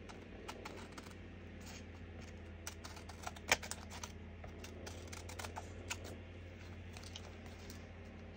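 Faint, irregular clicks and taps of card being cut and handled, the sharpest about three and a half seconds in.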